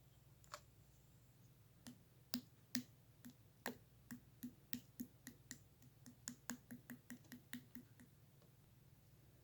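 A run of about twenty light, sharp clicks, irregular at roughly three a second, starting about two seconds in and stopping about a second before the end, over a faint low hum.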